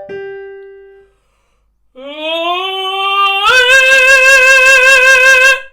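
A piano note fades out, then a tenor sings a vowel that starts low and slides upward before leaping, about halfway through, to a full-voiced high C held with vibrato for about two seconds. The note is sung from a deep cover with a low, 'yawning' larynx, giving it a chest-like, powerful quality.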